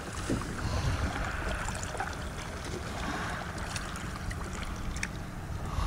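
Water swishing and dripping as a wooden paddle is worked beside a small boat, with a few light drips and splashes, over a low rumble of wind on the microphone.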